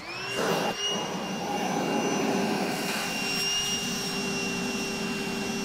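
Milwaukee wet/dry shop vacuum switched on, its motor whine rising as it spins up, then running steadily with a rush of air through the hose as it sucks up metal swarf from freshly drilled holes.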